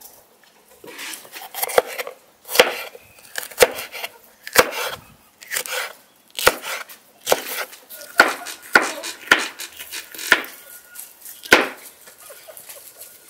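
Kitchen knife slicing through fresh vegetables, green bell pepper among them, on a wooden cutting board: about a dozen sharp cuts, each ending in a knock of the blade on the board, roughly one a second.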